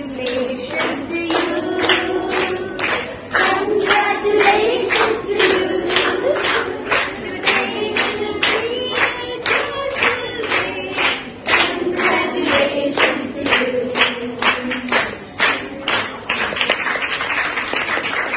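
A group of schoolgirls singing together while clapping a steady beat. Near the end the song breaks into general applause.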